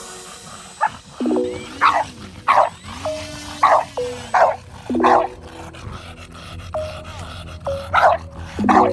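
Electronic dance music (dubstep-style) with short, loud, repeated stabs and sliding tones.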